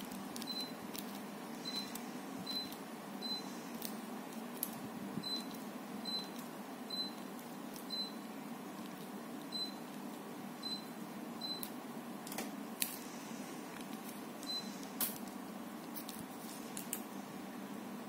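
Daikin FTNE35MV14 split air conditioner's indoor unit giving about a dozen short high beeps at irregular intervals, each acknowledging a command from its remote control, over the steady rush of its fan. Several sharp clicks come in the later part.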